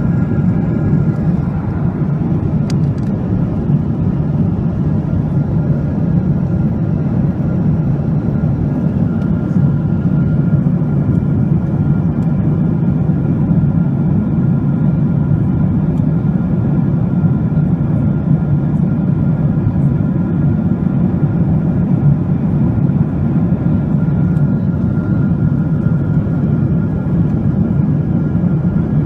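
Jet airliner cabin noise in flight: a steady low rush of engines and airflow, with faint steady whining tones above it.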